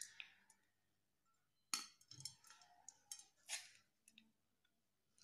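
A spoon clinking and scraping against dishware as cooked rice is served onto a glass plate: a handful of short, sharp taps and scrapes starting a little under two seconds in, the first the loudest.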